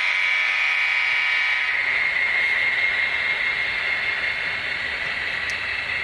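Model train running past on the layout track: a steady whir of the locomotive motor and the cars' wheels on the rails, with a high hiss.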